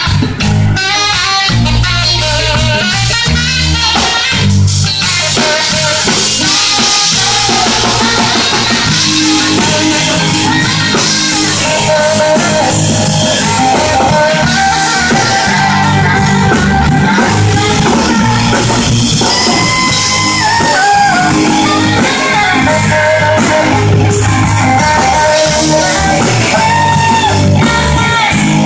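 Live band music played loud: a guitar line over bass and drum kit, running without a break.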